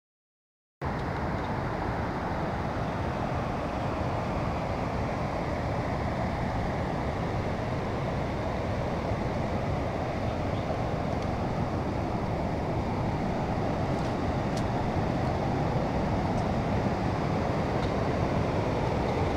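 Steady rushing of water from small waterfalls and rapids, starting about a second in and growing slightly louder toward the end, with a few faint clicks.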